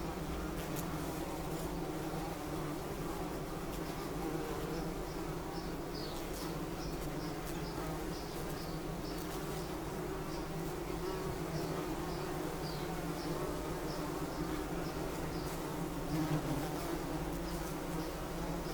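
Bumblebee buzzing steadily with a low, even hum. From about four seconds in, faint high chirps repeat about twice a second behind it.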